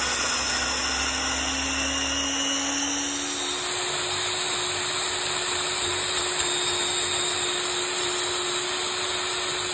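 Countertop blender motor running at full speed, blending onion, red pepper and garlic with oil and vinegar into a peri peri sauce. Its steady whirr steps up in pitch about three and a half seconds in and holds there as the chunks break down into a smooth sauce.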